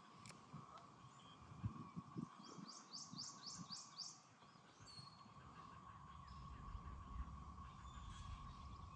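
A bird singing a quick run of about six rising chirps, over a faint steady high hum.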